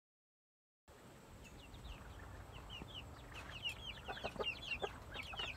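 Dead silence for about the first second, then chickens fading in: a fast, continual run of short, high, falling peeps, with a few lower calls among them.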